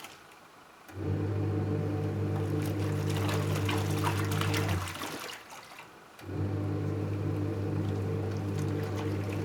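Panasonic twin-tub washing machine's wash tub running with water sloshing: the motor hums for about four seconds, stops for about a second and a half, then starts again, the stop-and-start rhythm of the wash cycle.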